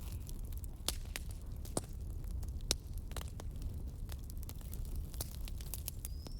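Fire crackling: irregular sharp pops and snaps over a steady low rumble, with a short rising whistle near the end.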